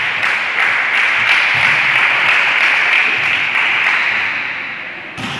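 Applause: a dense, steady patter of clapping that fades toward the end.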